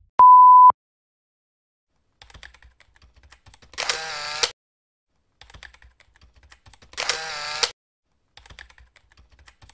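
Typewriter sound effect as text appears letter by letter: runs of faint key clicks, each ending in a longer carriage-return sound, twice (about 4 and 7 seconds in). It opens with a loud half-second beep at one steady pitch.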